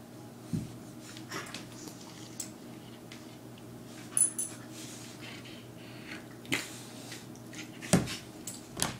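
Keeshond rolling and wriggling on its back on a wooden floor: scattered short bumps and scrapes of its body and paws against the boards, the loudest a thump near the end, with a brief high ring about four seconds in.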